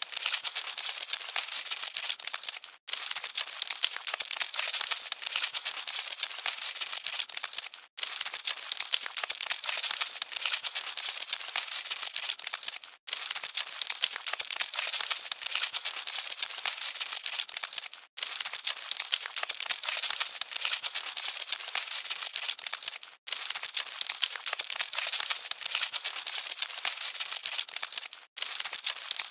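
Cockroaches scuttling: a dense, dry crackling and rustling of many tiny clicks. It drops out for an instant about every five seconds, as a short recording loops.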